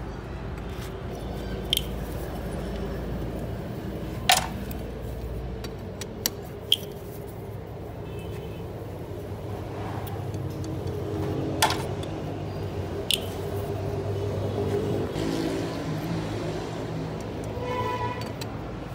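About half a dozen sharp metallic clicks and taps of a hand tool working on an oil-covered automatic transmission valve body, the loudest about four seconds in, over steady background noise.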